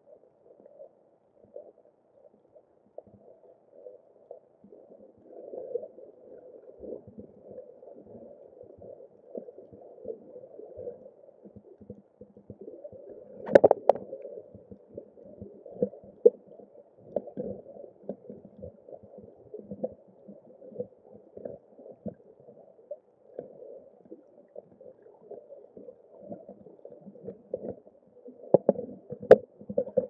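Muffled underwater sound through a waterproof camera housing: irregular low crackling and gurgling, with a sharp knock about 13 seconds in and more clicks near the end.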